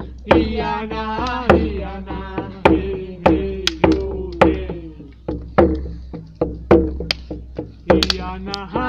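A ceremonial chant sung to a drum beaten in a steady, repeating beat.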